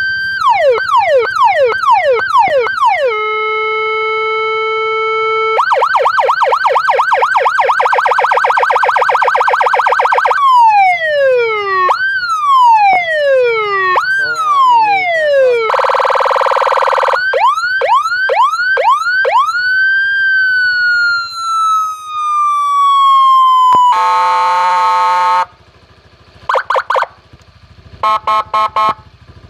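Electronic police-escort siren module played through a small horn loudspeaker, stepping through its tones: fast repeated falling yelps, a steady two-tone note, a rapid warble, slower falling wails, a buzzing tone and a long falling wail. Near the end come a few short horn blasts from its interrupt horn setting.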